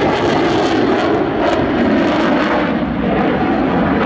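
Loud, steady jet noise from an F-16 fighter's single engine as it flies an aerobatic pass.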